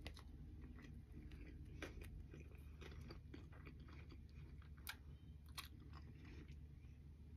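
Faint close-up chewing of a bite of breaded chicken sandwich on a soft bun, with small wet mouth clicks and a few sharper clicks, over a low steady hum.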